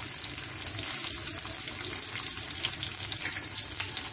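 Sliced onions frying in hot oil in a karahi: a steady sizzling hiss with fine crackle.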